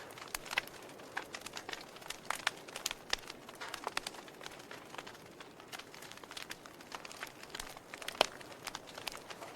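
Wood fire crackling in a fireplace: irregular sharp pops and snaps over a faint hiss, with one louder pop near the end.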